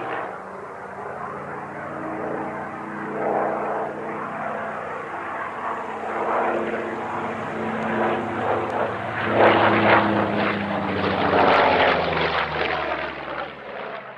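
Propeller aircraft engine running, with steady low engine tones that swell louder and fade as it passes, loudest in the second half, then cut off abruptly at the end.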